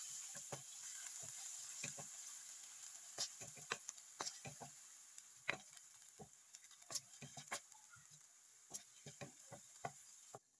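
Wooden spatula stirring minced meat in a nonstick frying pan, making irregular clicks and taps as it knocks and scrapes the pan, over a faint steady hiss.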